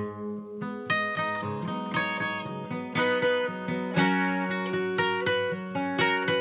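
Acoustic guitar playing an instrumental passage: chords picked and strummed in a steady rhythm, notes ringing on between strokes.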